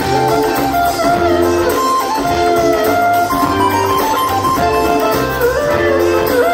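Jam band playing an instrumental jam live through a large outdoor stage PA, heard from the crowd: a lead line of held and sliding notes over a steady bass.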